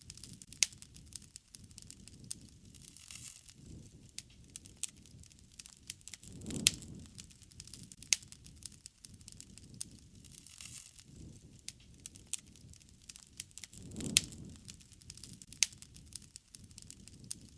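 Wood campfire crackling, with frequent sharp, irregular pops and snaps and a soft low swell of the flames about every seven seconds.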